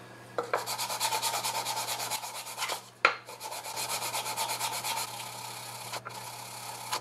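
Outboard water-pump impeller housing rubbed by hand in fast back-and-forth strokes on 220-grit sandpaper wetted with cutting fluid, laid flat on a granite tile: lapping the mating face flat. A sharp knock about three seconds in briefly breaks the strokes, which then go on and fade out.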